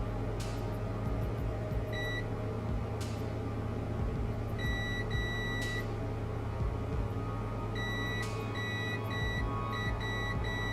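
Multimeter continuity beeper sounding in irregular high beeps, some short and some held for half a second or more, each one meaning the circuit through the switch pads is closed. A few sharp clicks and a steady low hum run underneath.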